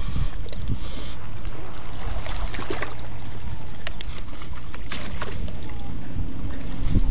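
Wind rumbling steadily on the microphone, with water lapping and scattered small clicks and knocks, and one sharp knock at the very end.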